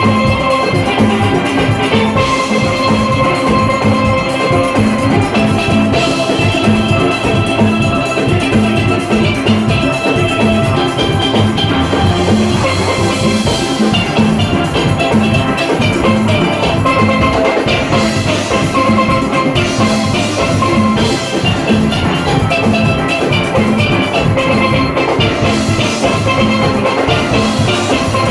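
Steel orchestra playing a fast soca arrangement: massed steelpans carry the melody and chords over the engine-room percussion and drum kit keeping a steady beat.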